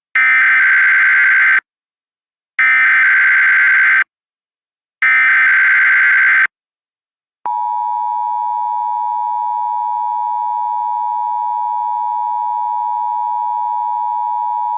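Emergency Alert System signal: three short bursts of warbling digital header data, about a second apart, then a steady, loud attention tone starting about halfway through.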